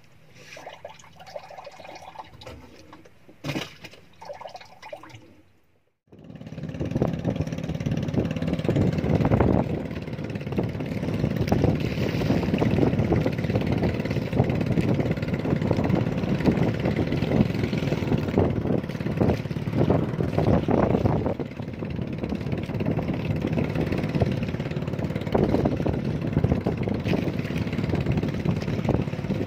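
Low, sparse handling sounds with a single sharp click about three and a half seconds in, then, after a cut about six seconds in, loud, steady rushing of wind and water aboard a small wooden outrigger boat under way across choppy water.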